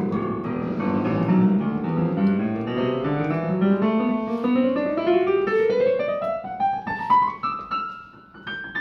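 Casio PX-760 digital piano in its piano voice, played note by note in a long ascending run up the keyboard from the low notes to the high ones. The run checks that every key sounds after repair of a fault that had caused noise, rattle and distortion.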